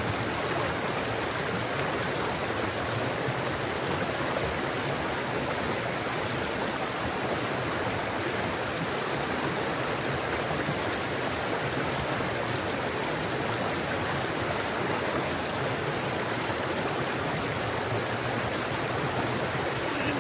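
Small mountain trout stream rushing steadily over rocks.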